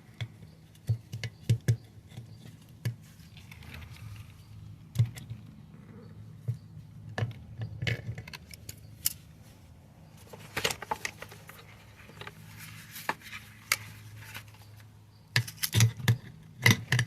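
Hand tools clinking and scraping against a tire and wheel rim in irregular short clicks and knocks, with a steady low hum underneath.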